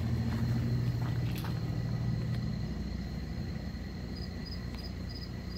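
Crickets chirping, a steady high trill with rhythmic high chirps joining about four seconds in, a couple a second. A low steady hum underneath fades out about two and a half seconds in.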